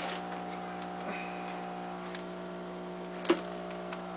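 Steady electrical hum, with a single sharp click a little over three seconds in.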